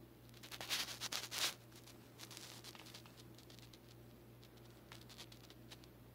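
A cat's claws scratching and rustling a sheet as it plays: a burst of quick scrapes and rustles about half a second in, then lighter scattered rustles.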